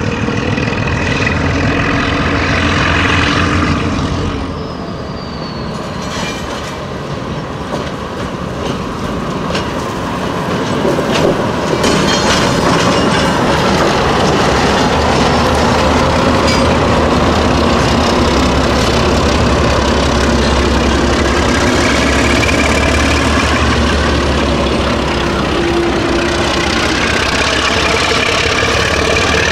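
NSW 48 class diesel-electric locomotives running in multiple and working hard as they pass close by, their engines throbbing under load, with wheels clicking over the rail joints. The sound grows louder about a third of the way in as the locomotives come alongside.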